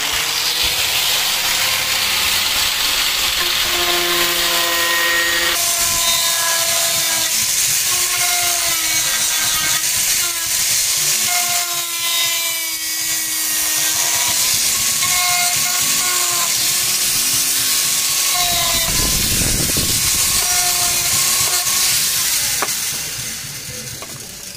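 Power grinder running and grinding body panels: a steady whine whose pitch shifts as the tool bites and eases, over a harsh hiss of abrasion. It winds down and fades near the end.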